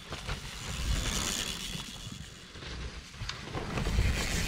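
Mountain bike tyres hissing and skidding through wet, muddy trail, with scattered rattles and clicks. The sound swells about a second in and again near the end, over a gusty wind rumble on the microphone.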